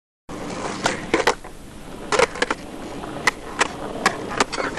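Skateboard rolling on paving: a steady rumble of the wheels, broken by a series of sharp clacks as the board and wheels strike the ground.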